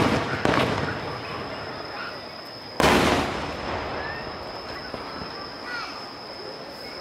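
Aerial firework shells bursting: two booms in quick succession at the start, then a louder boom a little under three seconds in, each dying away over about a second.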